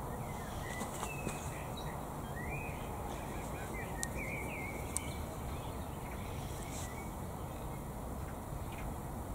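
Small birds chirping in short gliding calls, mostly in the first half, over a steady low rush of breeze. A couple of faint ticks partway through.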